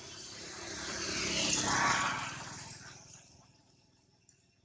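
A vehicle passing by: a rush of noise that swells, peaks about two seconds in and fades away.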